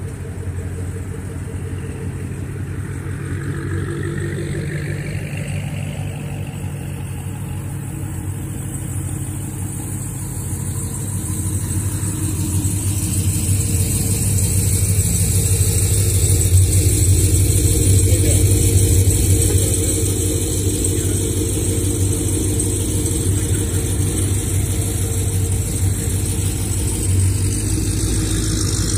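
Car engines idling and running at low speed as cars creep past one after another, a white Chevrolet sedan and then a yellow Honda S2000. The steady low engine note grows louder about halfway through as a car passes close by, then holds.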